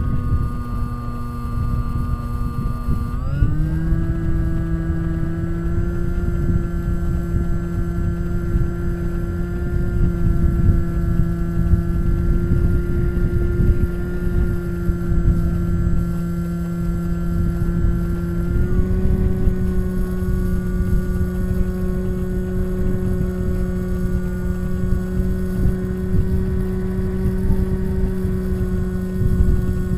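Bixler RC glider's electric pusher motor and propeller running under power, heard from the onboard camera with airflow rushing over the microphone. The steady whine steps up in pitch about three seconds in and again about halfway through as the throttle changes.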